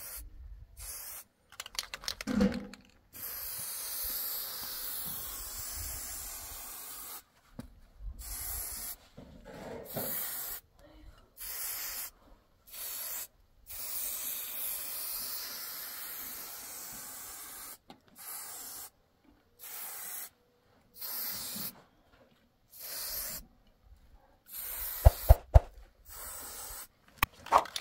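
Aerosol spray paint can hissing in repeated bursts of varying length, some lasting several seconds, as black lines are sprayed onto a wall. A few sharp knocks come near the end.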